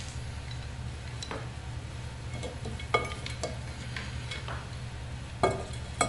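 Light taps, knocks and clinks of glazed ceramic pieces and a small plastic water pump with tubing being handled and fitted together. The loudest knock comes about three seconds in and another just before the end, over a steady low hum.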